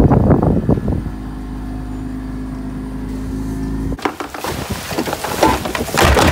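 Wind buffeting the microphone, then about a second in a sailing catamaran's engine running with a steady, even hum. About four seconds in the hum cuts off sharply and a harsher rushing noise takes over.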